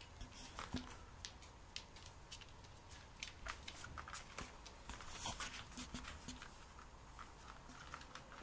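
Faint, irregular clicks and taps of a husky's claws on a laminate floor as the dog walks about.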